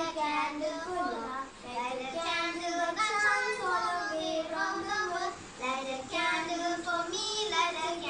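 Two girls singing a song together, the melody moving through held notes with a few brief pauses.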